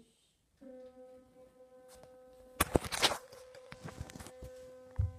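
Electric toothbrush buzzing steadily. It cuts out at the start and starts again just over half a second in. A burst of loud clattering and rustling from handling comes about two and a half to three seconds in, and a low thump near the end.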